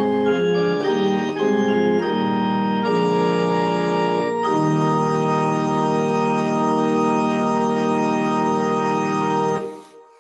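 Organ playing the closing chords of a hymn after the singing has ended: several chord changes, then one long final chord held for about five seconds that stops near the end.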